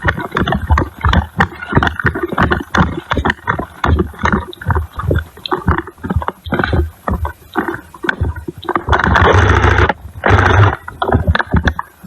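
Handling noise on a body-worn camera: rapid, irregular knocks and scrapes several times a second as it rubs against the wearer's kit, with two louder rustling bursts near the end.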